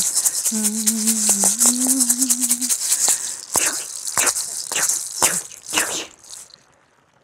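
A hand rattle shaken rapidly under a held, hummed chant note. About three seconds in the humming stops and the rattle gives five or six separate shakes that fade out.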